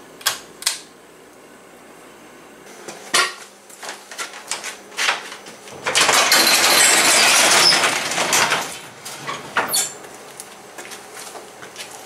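Two sharp clicks of a pull-chain light switch, then scattered knocks and clatter. About six seconds in comes a loud metallic rattle lasting about two and a half seconds as a sectional garage door rolls open.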